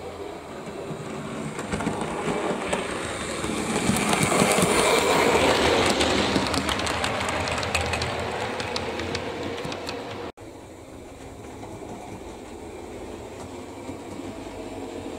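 Model railway train running past close by, its wheels rumbling and clicking on the track: the sound builds to a peak about five seconds in and fades. After a sudden cut about ten seconds in, only a quieter steady hum remains.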